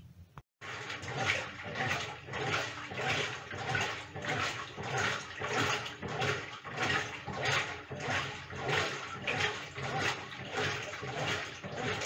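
Brastemp top-loading washing machine agitating water in its tub: watery sloshing that swells and fades in a steady rhythm, about three surges every two seconds, over a low motor hum. It starts about half a second in.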